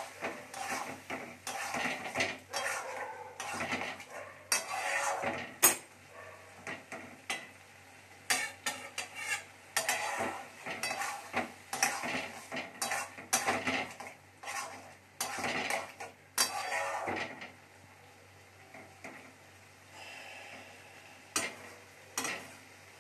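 Metal spatula stirring whole moong dal in a metal kadhai, clinking and scraping against the pan in quick irregular strokes as the dal is kept moving on low heat so it doesn't stick. The stirring pauses for a few seconds near the end, then a few more strokes.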